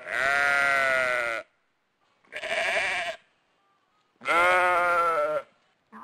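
Animal bleating: three drawn-out calls, each about a second long with short pauses between, the second one wavering, and a fourth starting near the end.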